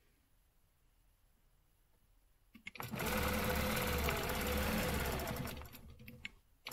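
Quilting machine stitching along a ruler: it starts a little over two and a half seconds in, runs steadily for about three seconds, then slows to a stop near the end.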